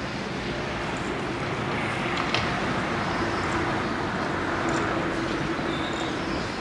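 Steady city street noise, a hum of traffic with a low steady drone under it and a single sharp click a little over two seconds in.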